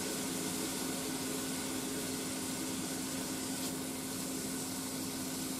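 Sliced pork frying in a pan on an induction hob, a quiet steady sizzling hiss over a low steady hum.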